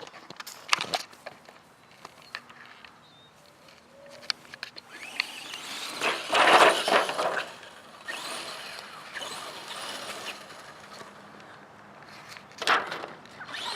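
Radio-controlled truck driving over rocks: its tyres and chassis scrabble and crunch, loudest in a burst about six to seven seconds in, with a sharp knock near the end as it gets stuck.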